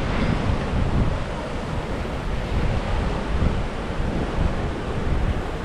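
Ocean surf washing on the shore, with wind buffeting the microphone.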